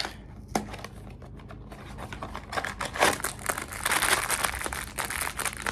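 Crinkling and crackling of a foil blind-bag wrapper being handled and torn open, with many small irregular crackles that get busier and louder about halfway through.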